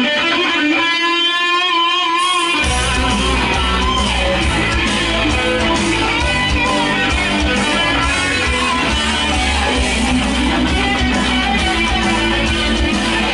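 Rock music with electric guitar. The bass and drums drop out briefly near the start, leaving the guitar line alone, then the full band comes back in about two and a half seconds in.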